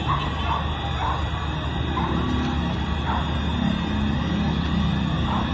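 Emergency vehicle sirens wailing, rising and falling in pitch over a steady wash of noise, clearer near the end.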